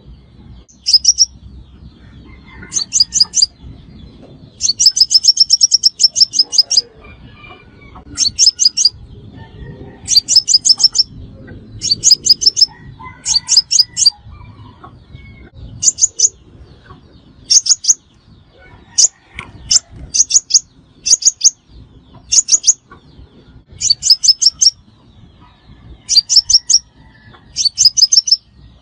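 Sunbird song, the bird called 'hút mật xác pháo' by Vietnamese trappers: short bursts of rapid, high-pitched ticking notes, one burst every one to two seconds.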